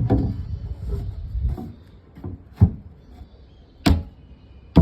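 Wooden boards of a subwoofer box being handled and shifted for about two seconds, then three sharp knocks of wood on wood about a second apart.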